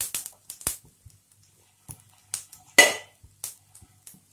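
A tempering of mustard seeds, cumin and dried red chillies in hot ghee being stirred in a pan: scattered sharp clicks and taps, the loudest about three seconds in with a brief ring.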